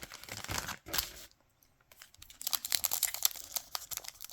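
Foil trading-card pack wrapper crinkling and tearing in a run of small crackles, pausing briefly after about a second and starting again.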